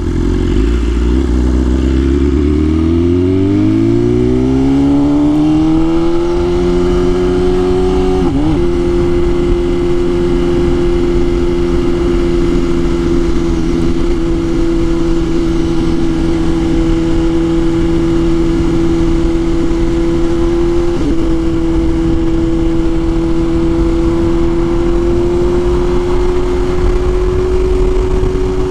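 BMW S1000RR's inline-four engine pulling hard, its pitch rising steeply over the first few seconds, then held at a steady high rpm while cruising, with two brief dips in the pitch.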